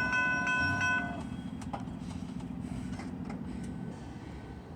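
A train rolling past, its low rumble fading away. A chord of high ringing tones, pulsing about two or three times a second, cuts off about a second in.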